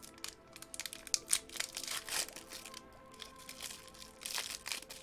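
Foil Pokémon card booster-pack wrapper crinkling in irregular bursts as it is handled and opened.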